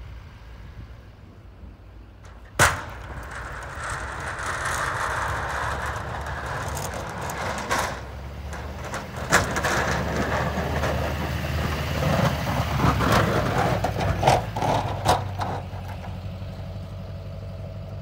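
Snowplow pickup truck's engine running as its plow blade pushes and scrapes snow across the pavement, with scattered knocks; a single sharp bang comes about two and a half seconds in. Near the end the scraping stops and only the engine runs steadily.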